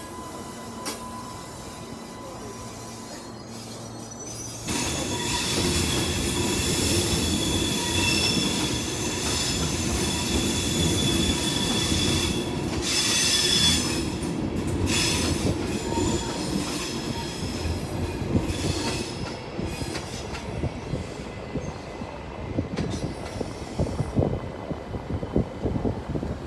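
A train passing with its wheels squealing in high, steady ringing tones. It gets suddenly loud about five seconds in, then fades gradually through the second half, with sharp clicks near the end.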